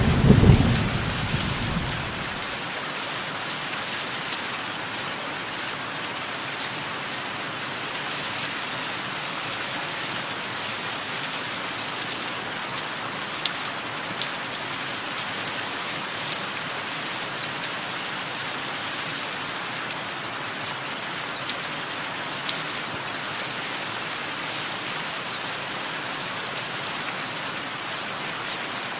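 Steady rain hiss with small birds chirping, short high descending chirps every second or two. A low thunder rumble dies away in the first two seconds.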